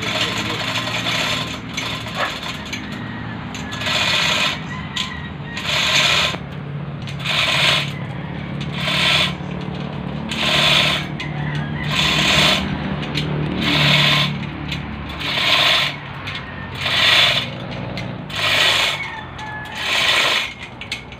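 Freshly overhauled Isuzu 4JG2 four-cylinder diesel running on an engine stand, a steady hum under a loud hissing rush that repeats about every second and a half.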